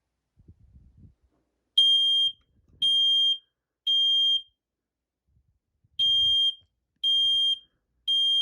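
Smoke alarm being tested, its piezo horn sounding the temporal-three evacuation pattern: three high-pitched half-second beeps about a second apart, a pause, then three more. It is still loud even with the horn covered.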